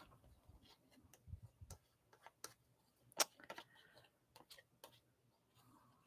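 Quiet room with faint, irregular light clicks and taps, the sharpest about three seconds in.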